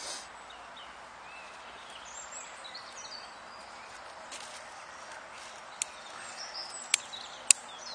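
Dry twigs being snapped by hand: a few sharp cracks in the second half, the loudest near the end. Under them is a steady outdoor hiss, with birds chirping faintly.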